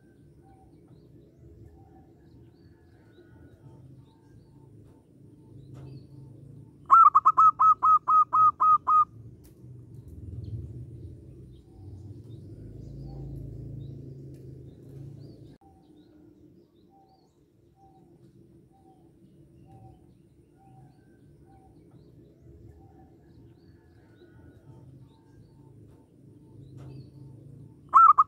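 Zebra dove (perkutut) singing: a quick run of about ten loud, clipped cooing notes about seven seconds in, and the same run again at the very end, with fainter bird calls between.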